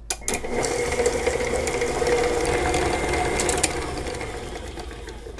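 Tilt-head electric stand mixer running, its flat beater creaming butter and sugar in a steel bowl: a steady motor whir that starts just after the beginning and dies away near the end.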